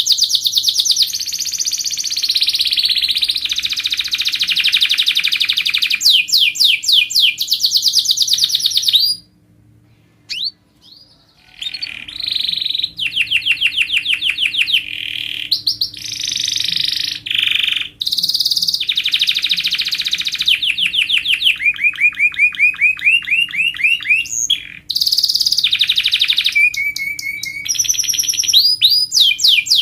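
Domestic canary singing a long, fast song of rapid trills and rolls, breaking off for about three seconds about a third of the way in before starting again.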